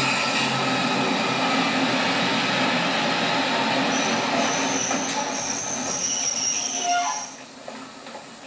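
A train pulling slowly into a station, with a steady rumbling run. A high wheel squeal joins it about four seconds in. The noise drops off suddenly just after seven seconds.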